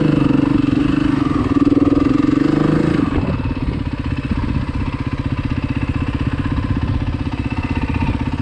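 Dirt bike engine running at steady, raised revs, then dropping back to an even idle about three seconds in.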